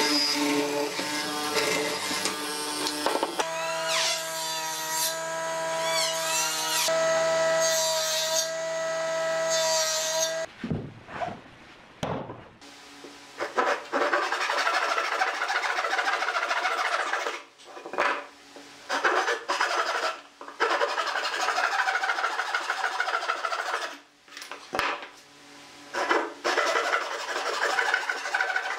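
For about the first ten seconds a bench-top hollow-chisel mortiser runs with a steady machine hum. Then a hand saw cuts through wood in a rapid run of rasping strokes, broken by several short pauses.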